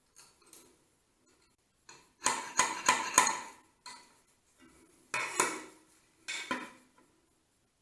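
Hard metal parts clinking and knocking together. A dense cluster of strikes comes about two seconds in, then two shorter bursts follow, each with a brief ring.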